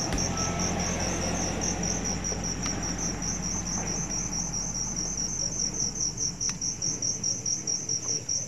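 Crickets chirping in a quick, even pulse, over a low hum that fades away about seven seconds in.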